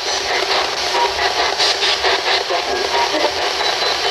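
Handheld spirit box (ghost box) sweeping radio stations: a steady hiss of static chopped by brief snatches of broadcast voices and music.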